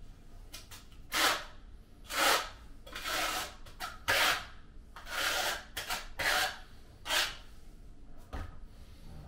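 Hand tool scraping during tile setting: about eight short rasping strokes, irregularly spaced.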